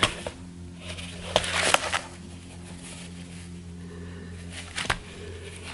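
A stiff paper memorial booklet being handled and opened: a brief rustle with a couple of sharp clicks about a second and a half in, and a light knock near the end. A steady low hum runs underneath.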